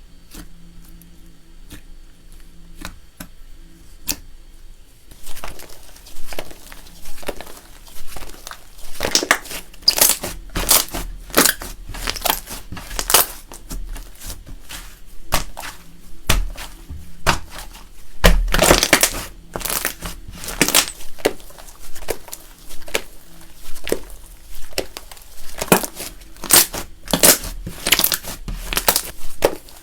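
Slime being pressed and folded by hand with chocolate pieces mixed in, crackling and crunching in repeated strokes about once or twice a second. Only a few faint clicks come for the first five seconds, and the loudest crunch comes a little past halfway.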